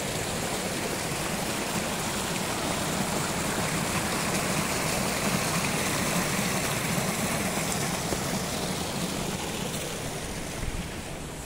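Small stream running over stones, a steady rushing wash of water that eases slightly near the end.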